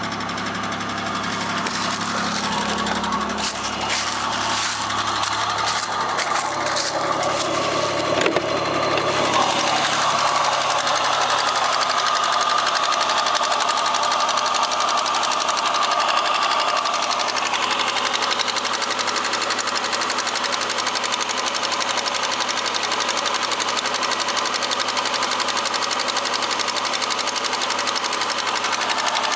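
Opel X30XE 3.0-litre 24-valve V6 engine running steadily with a rapid, sewing-machine-like knocking from inside the engine: the knock the owner is recording. The low hum drops away about nine seconds in, leaving the rattle.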